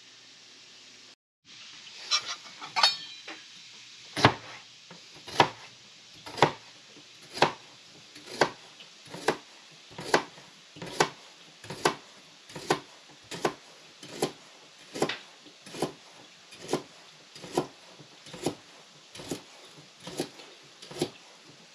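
Chef's knife chopping rhubarb stalks on a plastic cutting board: a steady series of knocks about once a second, growing slightly quicker, each blade stroke through the crisp stalk striking the board.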